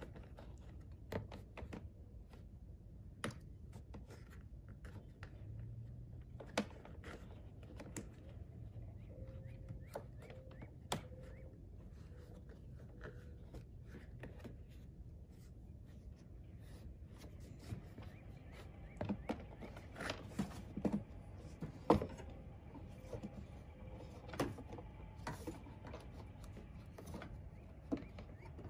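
Scattered light clicks and knocks of a car's plastic cowl panel and windshield washer tubing being handled and fitted back into place, busier in the second half, over a steady low rumble.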